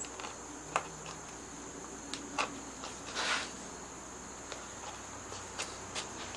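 Corner of a very small carving chisel working out slivers of yellow cedar: a few sharp clicks and ticks of the steel against the wood, with a short scraping cut about three seconds in. A steady high-pitched drone runs underneath.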